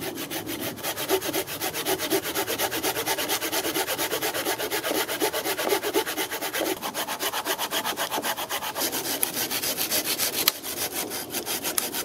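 Bahco folding saw cutting through a fallen log, in rapid, even back-and-forth strokes with the teeth rasping through the wood. One sharp click comes about ten and a half seconds in.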